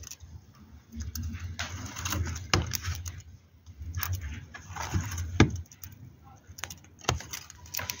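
Budgerigar picking at a millet spray: two bursts of rustling and seed-cracking, each a second or more, with a few sharp clicks.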